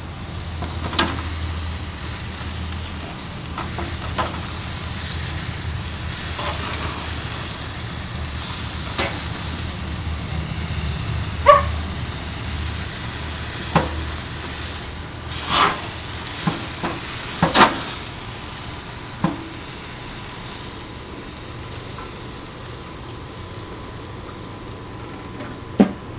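NY strip steaks sizzling over the flame of a Char-Broil grill, a steady hiss broken by about ten sharp metallic clicks and clanks, likely tongs against the wire grate. One more clank near the end as the grill lid is shut.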